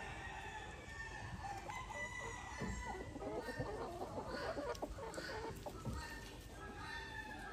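A flock of Ayam Cemani chickens clucking and calling over one another, with many short overlapping calls.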